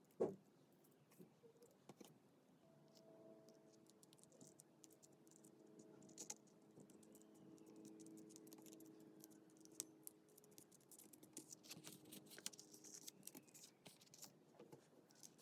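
Faint paper-crafting handling sounds: light clicks, taps and scratches of paper and small craft pieces being moved and pressed, with one louder knock just after the start and a faint steady hum in the middle.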